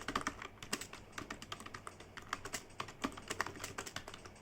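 Typing on a computer keyboard: quick, uneven keystroke clicks, several a second.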